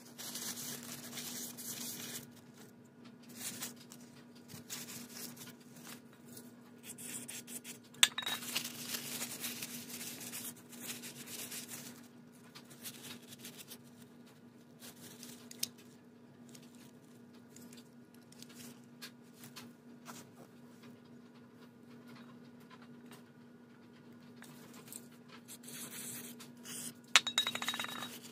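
Aerosol spray cleaner hissing through its straw in several bursts as a dirty engine part is cleaned, with a few sharp metallic clinks of the part and tools against the concrete, the loudest about 8 seconds in and again near the end.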